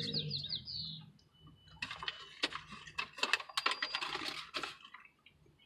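Paper food wrapper being handled, crinkling and crackling in a dense run of sharp clicks for about three seconds, starting about two seconds in.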